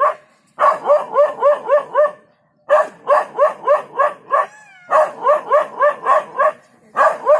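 Dog barking at a leopard: runs of rapid, high barks, about five a second, broken by short pauses, with a brief wavering whine in one of the pauses.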